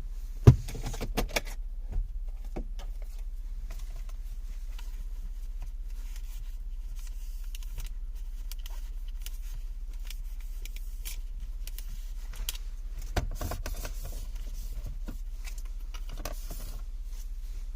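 Plastic console trim parts being handled: scattered clicks and knocks, the sharpest about half a second in, with another cluster about three-quarters of the way through, over a steady low hum.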